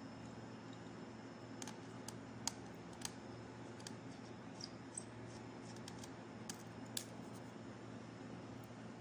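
Light scattered clicks and ticks of a small screwdriver and fingers working the screws and plastic parts of a laptop, about a dozen over five seconds, the sharpest about two and a half and seven seconds in. A steady low hum runs underneath.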